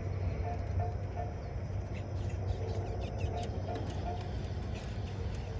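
A steady low hum with short, high bird chirps over it, several of them about two to three and a half seconds in.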